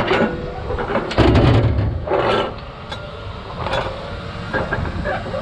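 Knocks and rustling as food containers are handled while lunch is got out, with one heavier clatter about a second in, over a faint steady hum.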